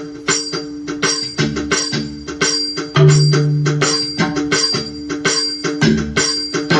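Roland SPD-20 Pro electronic percussion pad playing a rhythmic pattern of struck percussion sounds, about three to four hits a second, over two steady held tones. The pattern changes right at the start.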